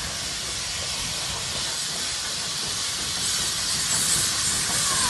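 Steam locomotive approaching, its hissing steam and running noise growing steadily louder as it nears.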